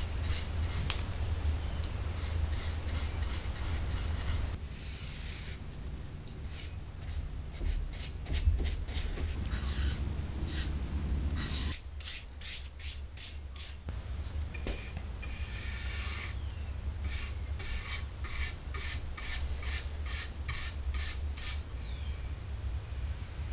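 Polyurethane being applied to wooden chair parts: a light first coat laid on in many short rubbing strokes, over a steady low hum.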